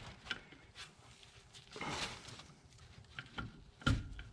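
Light clicks and clinks of metal hand tools on brake line fittings, with a soft rustle about two seconds in and a sharper knock near the end.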